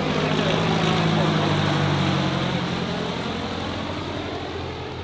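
Light propeller airplane's engine droning as it passes, swelling slightly then fading away.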